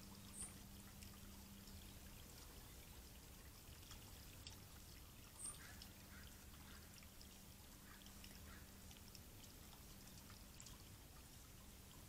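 Faint trickle of water from a stone column garden fountain spilling over rocks, with a steady low hum. Two brief high chirps come about half a second in and again about five seconds in.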